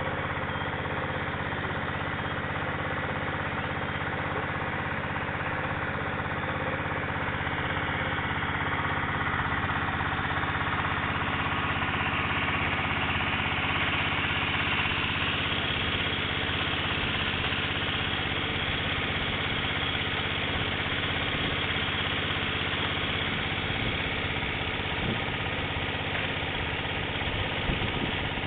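Small Tiomax engine-driven water pump running steadily while it pumps water through its hoses, growing a little louder around the middle.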